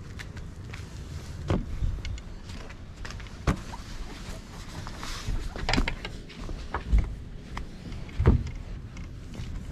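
Camera being picked up and moved about by hand: handling noise on the microphone, with several knocks and rubbing thumps over a steady low rumble.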